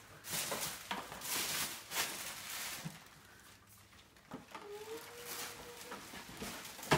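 Tissue paper and paper gift bags rustling and crinkling as presents are pulled out, busiest in the first three seconds. A brief held voice-like tone comes a little past the middle.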